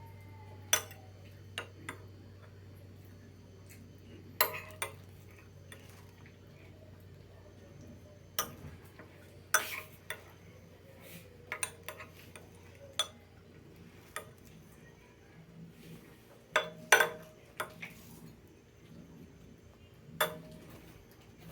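Kitchen utensils clinking and knocking against pots and plates, in scattered sharp clinks a few seconds apart, as ground-meat sauce is put into hot-dog buns. A low steady hum stops about nine seconds in.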